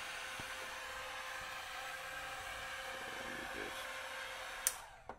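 Electric heat gun blowing steadily, then a sharp click near the end as the blowing stops.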